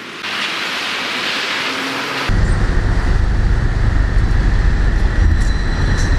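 A Belarus-built Stadler tram approaching a stop slowly, with a heavy low rumble and a steady high whine that both start suddenly about two seconds in. Before that, an even hiss of rain and wet pavement.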